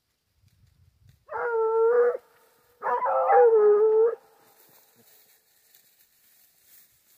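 Hunting foxhound baying on a wild boar hunt: two long, drawn-out bays about a second apart, the second wavering and falling in pitch at its end.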